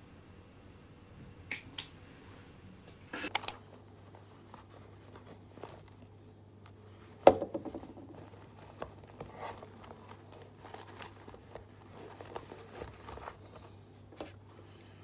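Household handling noises: a few light clicks and a quick rattle of knocks as picture frames are set on a wooden headboard ledge, then one sharp knock about seven seconds in. After it come soft rustling and small clicks as a shoulder bag's flap and contents are handled.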